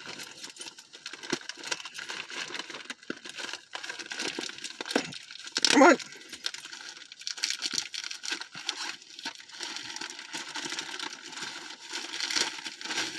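Packaging of a small plush toy being worked open by hand: irregular rustling and crackling all through, with a struggle to get it open.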